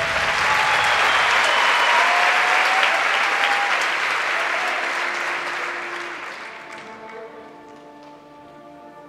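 Audience applauding in a theatre, dying away about seven seconds in as slow music with long held notes takes over.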